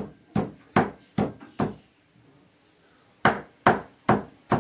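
Cleaver chopping raw meat on a thick round wooden chopping block: sharp knocks about two and a half a second, five in a row, then a pause of about a second and a half, then four more.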